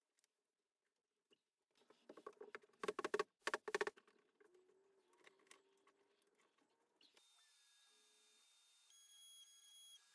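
A quick run of light knocks and clatters, about two to four seconds in, as clamps and the wooden column stock are handled on the CNC bed. Faint soft electronic tones follow near the end.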